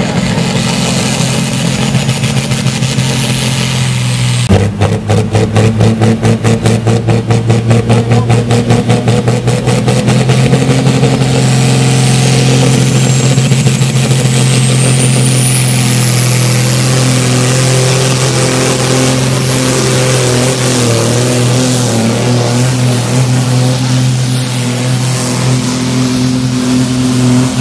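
Heavily tuned pulling tractor's engine with a large HX80 turbocharger running flat out under load. About four and a half seconds in the sound changes suddenly to a fast pulsing for several seconds, then a high whistle climbs in pitch over several seconds above the steady engine.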